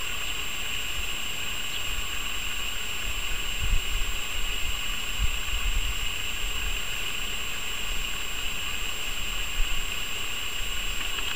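Faint, steady low rumble of an Airbus A380's four GP7200 turbofans cruising high overhead, under a constant high-pitched hiss. There are a few low thumps about four to six seconds in.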